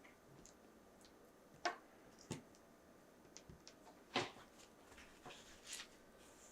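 Faint handling noises: a few soft clicks and short rustles as small 1/6 scale figure accessories are picked up and handled, the clearest about two and four seconds in.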